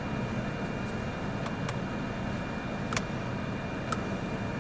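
Steady low rumble and hiss of a car, with a few faint clicks.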